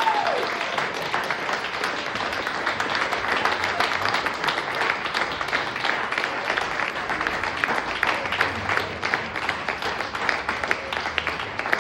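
Audience applauding steadily, many hands clapping at once, with a single rising-and-falling whoop right at the start.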